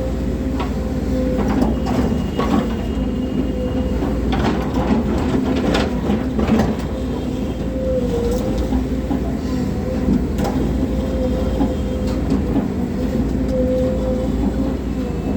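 Volvo crawler excavator running, its engine and hydraulics giving a steady drone with a held whine. Sharp metallic clanks and knocks come through the first half and once more about ten seconds in.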